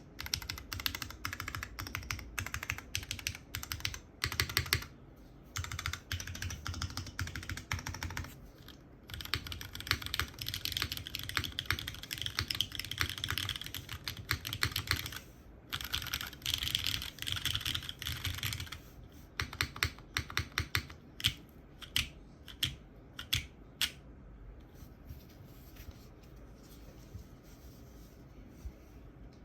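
Typing on a polycarbonate Forever65 custom mechanical keyboard with lubed, filmed Cherry MX Hyperglide Black switches on an aluminium plate and GMK keycaps: fast, dense key clatter, then single separated keystrokes, stopping about five seconds before the end.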